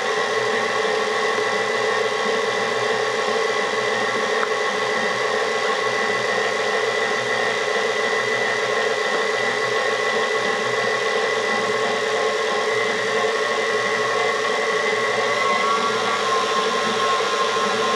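Electric kitchen mixer motor running steadily with a constant whine, evenly loaded throughout.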